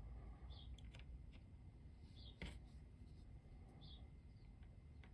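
Faint clicks and light handling of small plastic action-figure parts, with one slightly louder click about two and a half seconds in.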